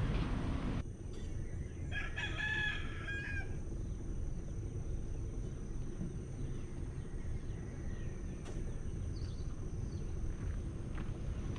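A rooster crows once about two seconds in, a call of roughly a second and a half, over a steady low rumble of outdoor background.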